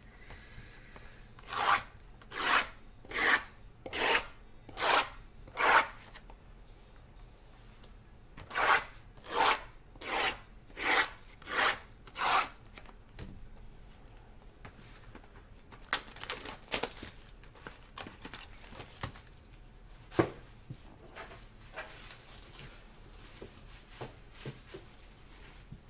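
Shrink-wrapped trading-card boxes being slid against one another while they are shuffled and restacked: two runs of six even swishes, then lighter scattered rubbing and one sharp tap.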